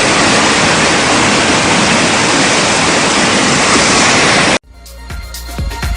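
Loud, steady rush of floodwater, cut off abruptly about four and a half seconds in, followed by electronic music with a beat.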